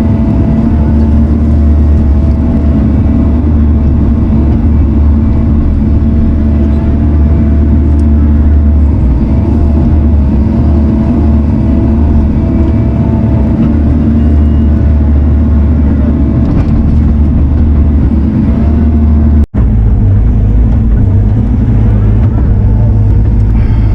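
Diesel engine of heavy earth-moving equipment running steadily under work, with a whine that wavers slightly in pitch. It cuts out for an instant about three-quarters of the way through, then carries on with a somewhat different low hum.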